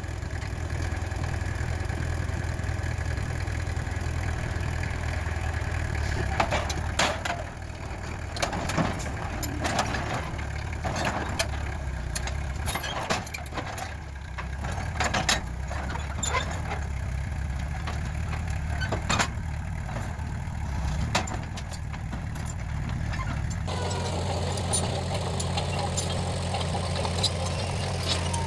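Heavy diesel earthmoving machine running steadily, with repeated sharp clanks and knocks through the middle stretch. The sound changes abruptly about 24 seconds in.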